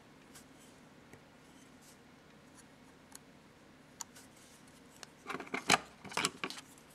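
Small plastic parts of a nail art tool being handled: a few faint ticks, then a quick run of clicks and scrapes about five seconds in, as when a paint tip or tip holder is pulled off and swapped.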